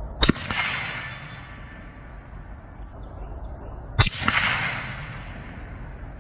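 Two shots from a Henry X Model .30-30 lever-action rifle, about four seconds apart. Each is a sharp crack followed by a trailing echo that dies away over about a second.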